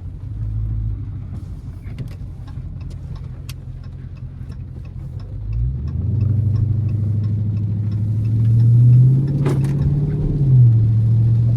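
Dodge Charger Scat Pack's 392 (6.4-litre HEMI) V8 heard from inside the cabin, running low and steady, then pulling away: about six seconds in the engine note rises and grows louder, peaking near nine seconds, and drops in pitch about ten seconds in as it settles.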